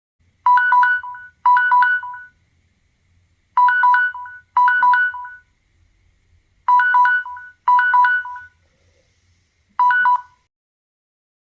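Samsung Galaxy 'Ticktac' default timer alarm tone (Android 4 and earlier) going off: quick triplets of electronic beeps, two triplets a second apart, the pair repeating about every three seconds. The last round stops after a single triplet near the end.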